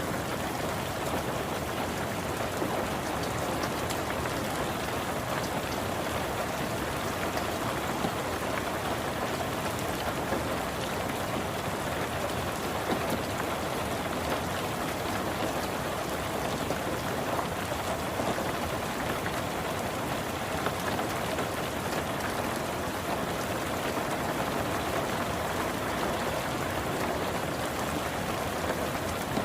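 Steady rain falling on a car's roof and windows, heard from inside the car: an even hiss with dense, fine drop impacts that does not change.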